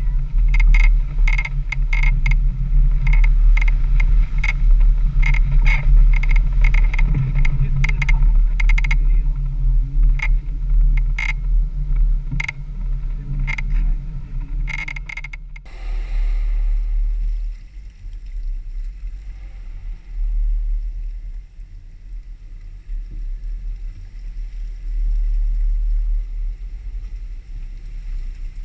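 Jeep Wrangler crawling along a muddy trail: low engine and drivetrain rumble with rapid rattles and knocks from the body and suspension over the rough ground. About halfway through the sound changes abruptly to a quieter, steady rumble.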